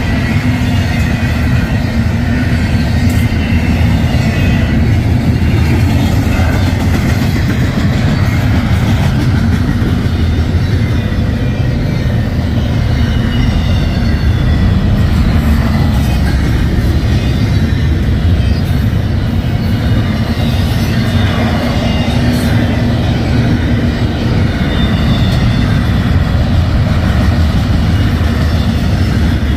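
Double-stack intermodal well cars rolling past close by: a steady, loud rumble and clatter of steel wheels on the rails.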